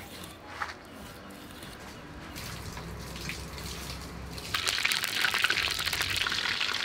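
Scored whole fish frying in hot oil, a dense crackling sizzle that starts suddenly about four and a half seconds in and keeps going.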